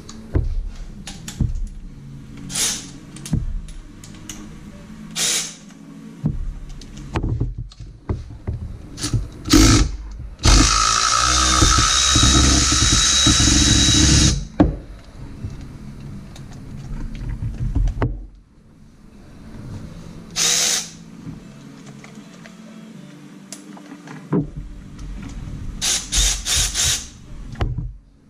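Cordless power ratchet running for about four seconds, about ten seconds in, with a steady motor whine as it spins a bolt off the engine. Several brief sharp clinks and short bursts of tool noise come before and after it.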